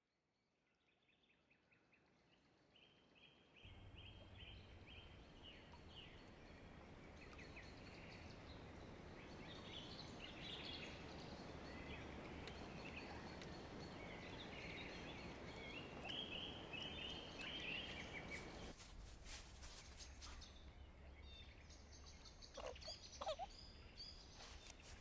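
Faint woodland ambience fading in from silence: birds chirping over a steady low hush. After a cut about three-quarters of the way through, a run of clicks is heard, then a woman starts crying near the end.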